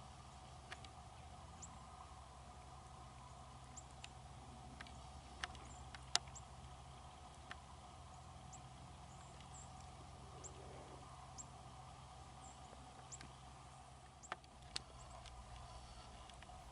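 Near silence: faint outdoor ambience with a low steady hum, scattered soft clicks and a few brief high-pitched peeps, the sharpest click about six seconds in.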